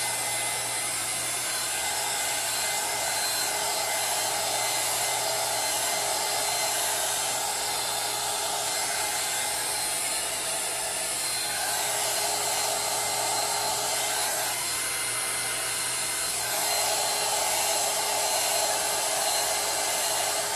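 Handheld heat gun blowing steadily over a tumbler, its note shifting a little as it is moved along the cup.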